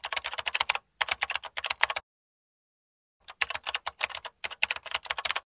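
Rapid keyboard typing clicks in two runs, the first stopping about two seconds in and the second starting about a second later and stopping near the end. It is a typing sound effect laid under captions that type out letter by letter.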